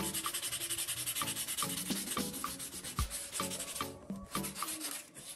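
A crumpled ball of aluminium foil rubbed quickly back and forth along a steel kitchen knife blade: a rapid, scratchy rasping of about eight strokes a second, with a brief pause about four seconds in.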